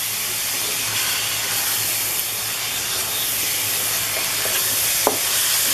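Carrot halwa sizzling in ghee in a pan as it is stirred with a spatula: a steady hiss, with a few light knocks of the spatula against the pan about four and five seconds in. The halwa is at the stage where it starts to leave the pan and the ghee separates, a sign it is nearly done.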